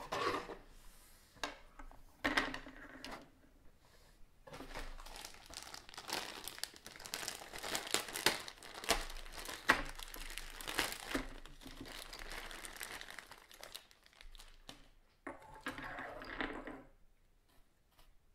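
Clear plastic parts bag crinkling and rustling as hands pull a plastic parts tree out of it, with scattered light clicks of hard plastic sprues. The rustling stops shortly before the end.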